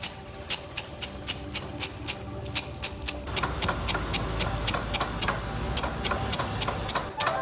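Wooden pestle pounding peanuts in a wooden mortar, a steady beat of about three strokes a second. From about three seconds in the strokes turn duller and heavier as the nuts break up into coarse pieces.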